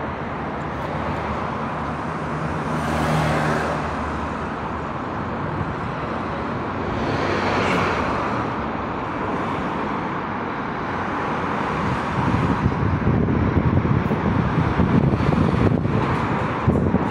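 Steady road traffic noise from a busy city road, with a car passing about three seconds in and another swell of traffic a few seconds later. From about twelve seconds in, wind gusts rumble on the microphone.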